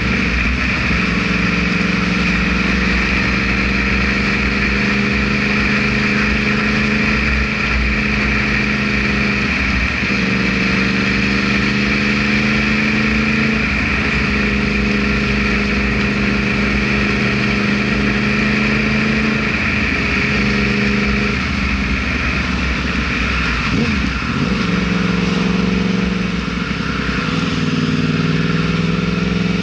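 Yamaha R1 inline-four sport bike engine under way. Its pitch sinks slowly, then jumps up a few times, and climbs again near the end, over a steady hiss.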